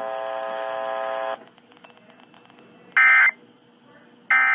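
A steady electronic buzz cuts off about 1.4 seconds in. It is followed by two short, loud warbling data bursts about a second apart: the SAME end-of-message (NNNN) tones that close an Emergency Alert System weather warning on NOAA Weather Radio.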